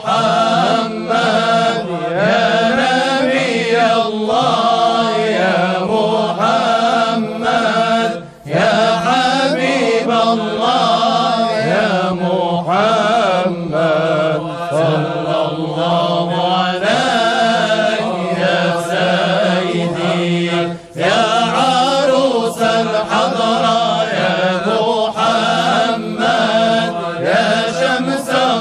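Sufi devotional chanting in Arabic: voices singing a slow, melismatic hymn in praise of the Prophet Muhammad. It is continuous, with two short breaks for breath, about eight and twenty-one seconds in.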